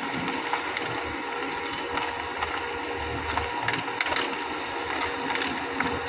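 Heavy construction machinery running: the diesel engines of a JCB 3DX backhoe loader and a self-loading concrete mixer running steadily under a thin whine, with frequent short sharp clatters and knocks.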